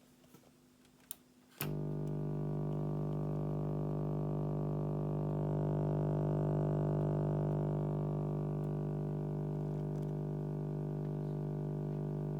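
Sansui SE-77 giving off a loud, steady mains hum rich in buzzy overtones, the hum fault the unit has. It starts suddenly with a click about a second and a half in and cuts off abruptly near the end.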